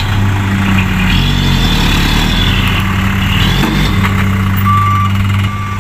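Engine of a light dump truck running steadily, with its tipper bed raised.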